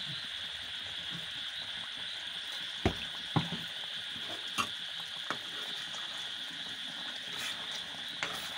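Duck meat curry simmering in an iron kadai: a steady sizzling hiss with a few sharp pops of bursting bubbles. A ladle starts stirring near the end.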